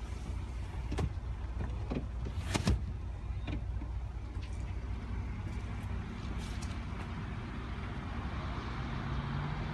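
Ford Edge power-fold second-row seatbacks folding down at the push of a button: a steady electric drone with a few clicks and knocks, the loudest about two and a half seconds in.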